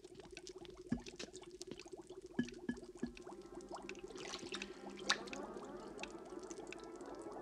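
A thin stream pouring into a glass box, with scattered sharp drips and ticks over a steady low hum. Soft held musical tones build up over the second half.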